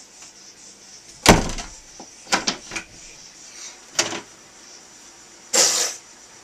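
A wooden interior door: a hard bang on it about a second in, then several sharp clicks of its knob latch as it is opened. A short harsh burst of sound from the angry child comes near the end.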